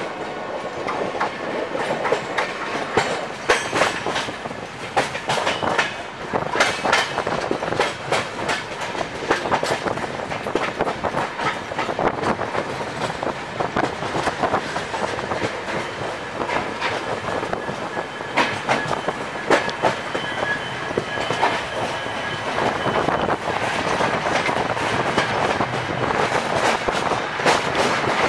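Express train's coach wheels clattering over rail joints and points at speed, heard at an open coach door with the rush of passing air; irregular sharp clacks throughout.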